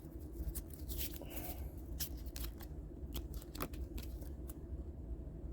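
Stiff clear-plastic Hecatomb trading cards being handled and flipped through, a string of light, irregular clicks and rustles.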